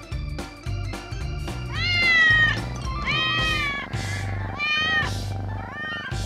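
Kittens meowing: about four high, arching meows, the first and longest about two seconds in, the others shorter and spread over the following few seconds.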